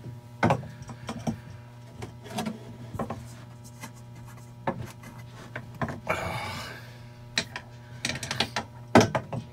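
Irregular knocks, clicks and clunks from hands working on a stainless steel sink's fittings underneath, with a scraping rub about six seconds in, over a steady low hum.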